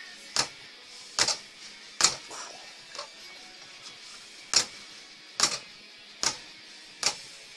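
Boxing punches landing with a string of sharp smacks, roughly one a second, some coming in quick pairs like one-two combinations.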